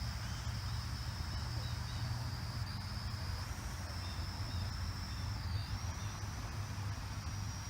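Small quadcopter's motors and propellers whining in flight, the high thin pitch stepping up and down as the throttle changes, with a low rumble underneath.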